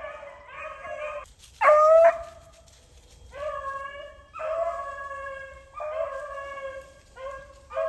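Rabbit-hunting hounds baying in the woods: a string of long, drawn-out bays, each lasting up to about a second, with one close, loud bay about two seconds in.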